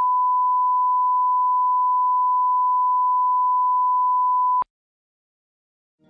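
Steady 1 kHz reference tone of a bars-and-tone line-up signal, the test tone used to set audio levels, cutting off suddenly about four and a half seconds in.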